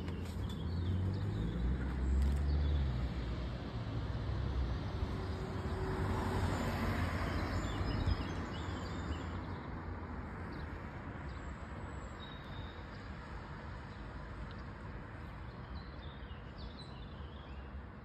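A car passing on the road, its engine and tyre noise swelling to a peak about seven seconds in and then slowly fading away. A few faint bird chirps sound over it.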